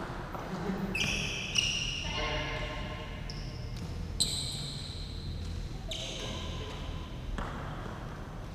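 Badminton rally: rackets striking the shuttlecock, sharply about one and a half seconds in and again about four seconds in. Between the hits, shoes squeak on the court floor as the players move.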